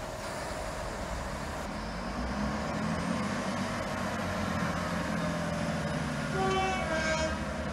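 Class 166 diesel multiple unit drawing slowly into the station, its diesel engines humming and getting louder as it nears. About six and a half seconds in come a few brief shrill squealing tones.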